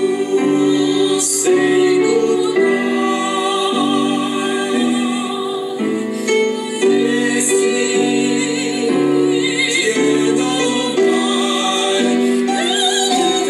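Piano chords under an operatic singing voice with a wide vibrato.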